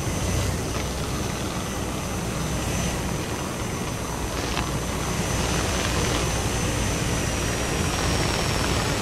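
Cessna light aircraft's engine and propeller running steadily in flight, a dense even drone with a thin high whine above it.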